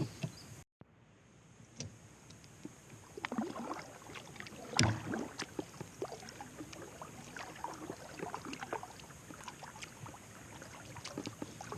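A kayak being paddled on calm water: scattered light knocks and splashes of the paddle, with a louder knock about five seconds in.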